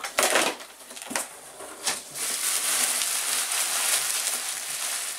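Bubble wrap and plastic packaging crinkling and rustling as it is handled and pulled apart, with a few sharp crackles in the first two seconds, then a steady dense crinkling that stops abruptly at the very end.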